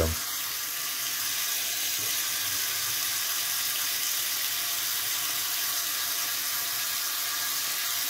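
Kitchen tap running steadily into a marble sink: an even, unbroken hiss of water.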